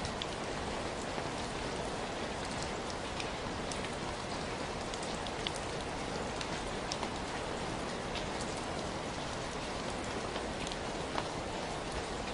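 Steady rain falling, a constant hiss with many separate drops ticking sharply on hard surfaces.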